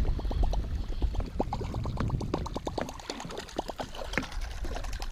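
Water splashing and gurgling close by in a quick, irregular patter, over a steady low rumble.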